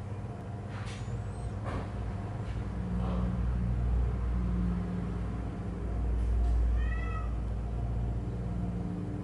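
Cat giving one short, high meow about seven seconds in, over a steady low rumble.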